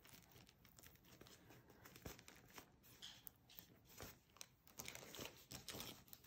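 Faint crinkling and scratching of a paper wrapper as fingernails pick at the tape on a rolled diamond-painting canvas, trying to lift a corner. It comes as scattered small irregular crackles and clicks.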